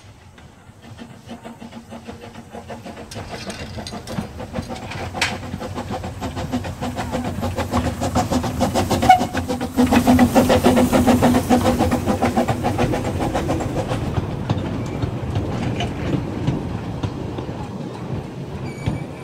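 Quarry Hunslet 0-4-0 saddle-tank steam locomotive bringing its train in: it grows louder as it approaches, is loudest as it passes close by about halfway through, and is followed by its carriages rattling and clicking along the rails.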